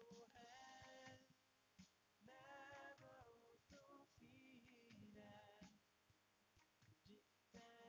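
Faint background song: a voice singing in short phrases, with brief pauses between them.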